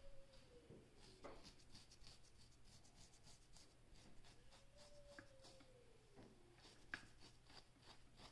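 Faint scratching of a fine-tooth comb raking through short, flaky hair against the scalp: quick, repeated strokes. A faint tone sliding slowly down in pitch sounds twice behind it.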